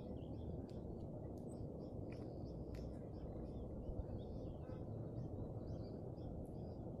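Rural outdoor ambience: a steady low rush of background noise with many short, high bird chirps scattered throughout.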